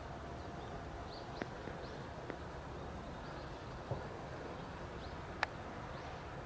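Steady outdoor background noise with faint high chirps of small birds and a few sharp clicks or knocks, the sharpest about five and a half seconds in.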